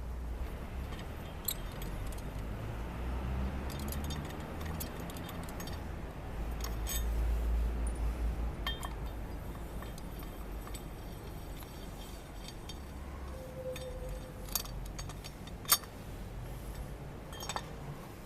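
Scattered light metallic clinks and clicks over a low rumble, with one sharp click near the end standing out as the loudest.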